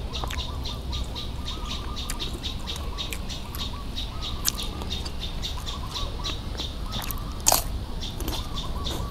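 Close-up chewing and mouth sounds of eating, irregular small clicks, with one louder crunchy bite about seven and a half seconds in. Birds chirp in the background.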